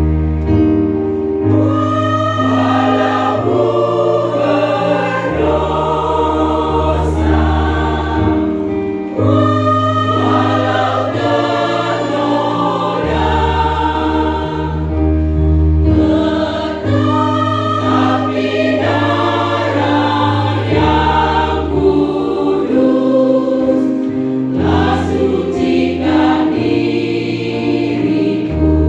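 Church choir singing a hymn in several parts, with held low notes beneath the voices.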